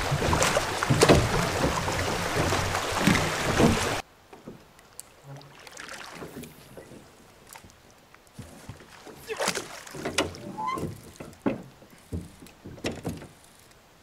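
Oars rowing an aluminium boat: loud splashing and knocking for about the first four seconds, then quieter, scattered knocks and splashes.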